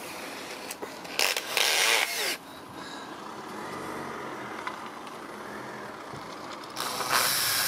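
Cordless drill with a small bit drilling pilot holes through a plastic bonnet-vent rain guard, in two bursts: a short one about a second in and a longer one starting near the end.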